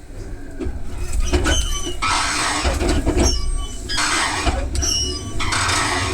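Interior running noise of a JR West Yamatoji Line local train: a low rumble that grows louder over the first two seconds. From about two seconds in, hissy bursts with high squealing tones come back about every second and a half.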